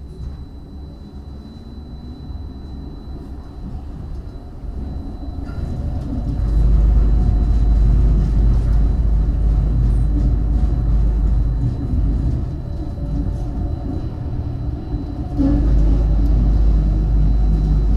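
Tram pulling away and running through a tunnel, heard from inside the car: a steady rumble of wheels on rails. It builds as the tram gathers speed, grows loud about six seconds in, eases off briefly, then swells again near the end as the tram rounds a curve.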